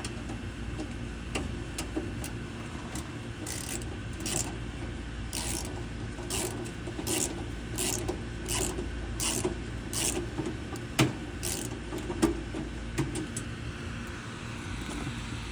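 A run of short rasping scrapes, roughly two a second, from about four seconds in until about twelve seconds in, over a steady low hum.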